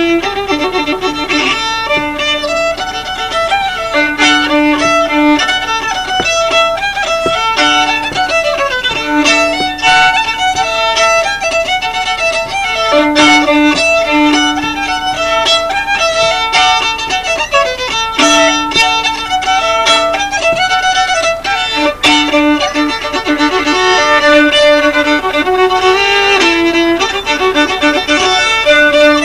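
Solo fiddle playing a quick-moving tune, with a lower drone note sounding under the melody again and again.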